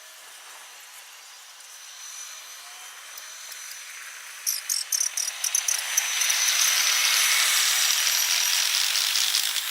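Crickets chirring in a steady high tone, with a quick run of short pulses about halfway through; then a loud rushing hiss swells up and starts to fade near the end.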